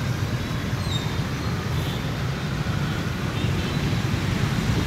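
Motorbike and car traffic on a wet city road, heard from a moving scooter: a steady low rumble of engines and tyres.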